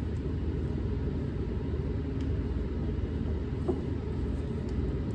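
Steady low background rumble with a couple of faint small clicks, typical of a small plastic fitting being handled.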